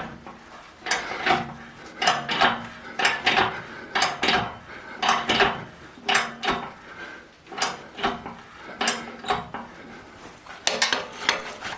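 Hand hammer striking metal on an anvil, ringing blows that come in close pairs, about one pair a second.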